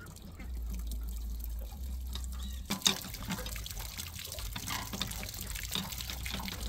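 Water dripping and trickling out of the anode port of a Suburban RV water heater tank while a screwdriver is worked inside to break loose heavy calcium scale. From about three seconds in, sharp clicks and scrapes of the tool against the deposits come through over the trickle.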